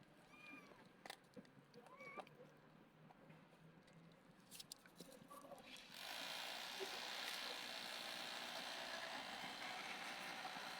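Two faint, short, high kitten mews, about half a second and two seconds in, with a few small clicks. About six seconds in, a steady hiss sets in.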